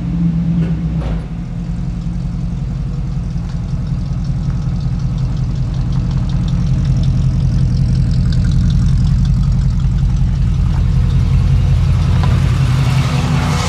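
Chevrolet squarebody pickup's engine running at low speed as the truck backs slowly over the ground, a steady exhaust rumble that grows louder as the truck comes close and passes overhead.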